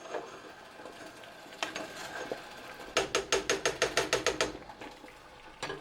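A quick even run of about a dozen ratcheting mechanical clicks lasting about a second and a half, starting about three seconds in, with a single click before and after it.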